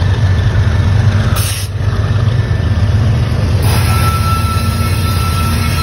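Diesel freight locomotive approaching slowly, its engine a steady low rumble, with a thin steady high whine joining about four seconds in.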